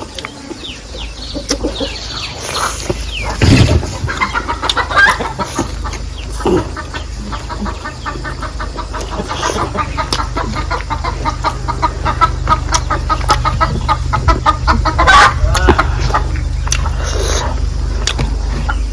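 Chickens clucking close by, with a quick run of repeated clucks in the middle and a steady low hum underneath.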